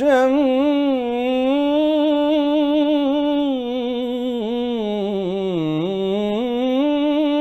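A solo voice singing an Arabic naat unaccompanied, drawing out one long melismatic note with a wavering vibrato. About two-thirds through, the pitch sinks slowly and then climbs back.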